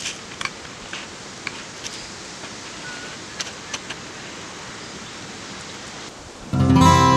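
Bacon sizzling on a wire grill over a wood fire: a steady hiss with sharp pops every half second to a second. Near the end the hiss stops and louder acoustic guitar music comes in.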